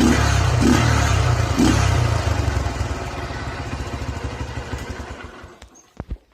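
Motorcycle engine running with its air filter and filter cover removed and the stock exhaust fitted, giving a louder intake rumble. It is blipped three times in the first two seconds, then dies away over the next few seconds.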